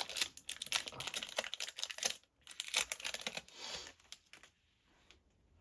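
Foil wrapper of a Topps Chrome trading-card pack crinkling and crackling as it is handled and opened, going quiet about four and a half seconds in.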